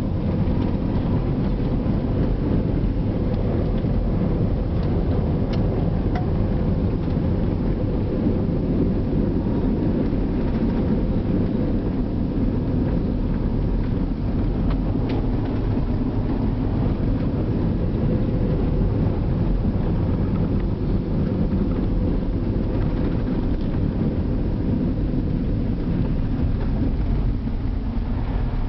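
Floodwater rushing past in a steady, heavy low rumble, with a few faint clicks.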